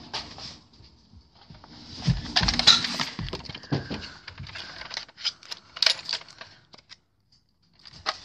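Close handling noise: rustling and a run of irregular plastic clicks and knocks as a Nerf blaster is handled right by the microphone. It is busiest from about two to four seconds in, with a short lull near the end.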